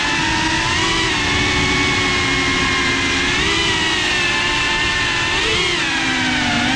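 FPV quadcopter's brushless motors and propellers whining, the pitch rising and falling with the throttle: it climbs about halfway through and again near the end, then dips. A low rumble runs underneath.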